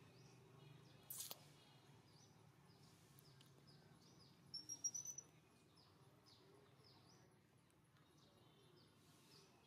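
Faint outdoor ambience of small birds chirping over and over, with a low steady hum underneath. There is a sharp click about a second in and a short cluster of louder, higher chirps about five seconds in.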